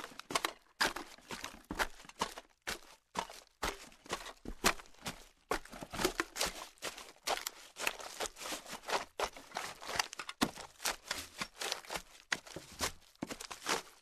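Footsteps walking through loose garbage: an irregular run of crunches and crinkles as trash is crushed underfoot.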